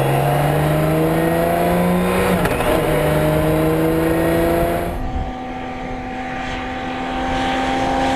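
BMW K 1600 motorcycle's 1.6-litre inline six-cylinder engine accelerating hard. Its note rises, drops at an upshift about two and a half seconds in, and rises again. After about five seconds it gives way to a quieter, steadier engine note.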